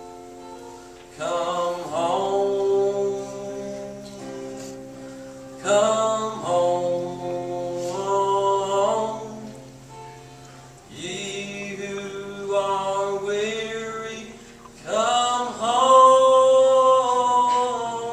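Live singing with instrumental accompaniment: four sung phrases with long held notes over a quieter, steady low accompaniment.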